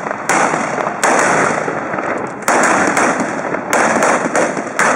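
Trabucs, Catalan blunderbusses loaded with blank gunpowder charges, firing in a ragged volley: loud shots in a near-continuous string, each trailing into the next, with a quicker run of several sharp shots in the last second and a half.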